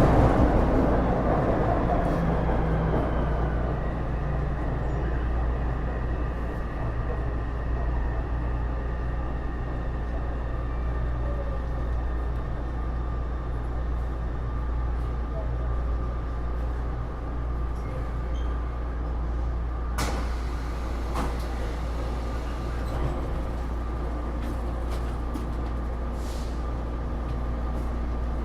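Interior sound of a Taipei Metro Series C301 metro car with Bombardier IGBT-VVVF traction. The running noise dies away over the first few seconds, then gives way to a steady electrical hum with several constant tones, as of the train standing at a station, with a sharp click about 20 seconds in.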